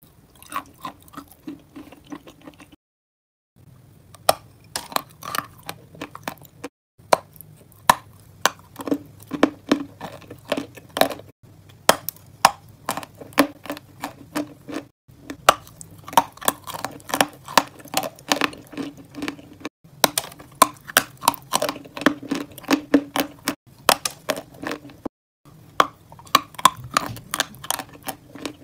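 Close-miked eating: a mouth chewing and biting dessert, with many quick wet clicking mouth sounds in runs, broken by several brief silent cuts.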